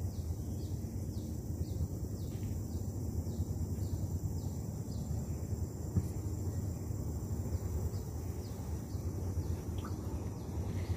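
Short, high, falling chirps repeating about twice a second from wildlife in the riverside vegetation, thinning out after the first half, over a steady low hum.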